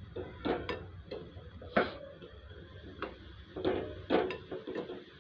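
A metal spoon clinking and scraping against an aluminium pan at irregular intervals as gulab jamun dough balls are turned in hot frying oil, with the oil sizzling steadily underneath.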